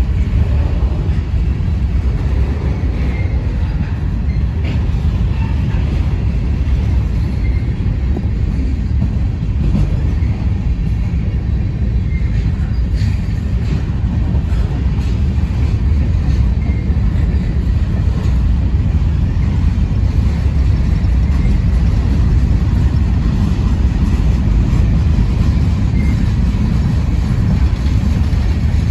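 Freight cars rolling past close by, covered hoppers and then boxcars: a steady low rumble of steel wheels on rail, with a few faint clicks.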